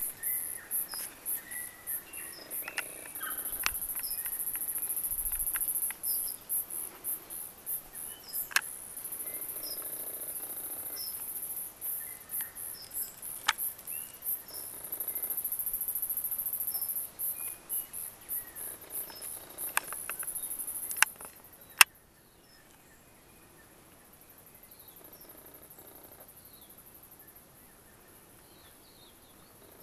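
Insects chirping in a high, steady buzz that at times breaks into rapid pulses, with scattered short bird chirps. A few sharp clicks come through, the loudest about 22 seconds in, where the insect buzz cuts off suddenly and it turns much quieter.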